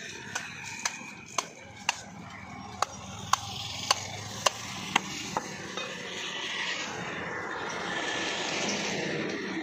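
A butcher's knife striking a wooden chopping block while cutting goat meat, about ten sharp clicks roughly two a second. Then a broad rushing noise that swells over the last few seconds.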